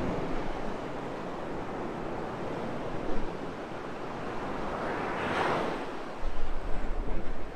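North Sea surf breaking and washing up a sandy beach, with one wave surging up loudest about five seconds in. Near the end, strong gusts of wind buffet the microphone with a low rumble.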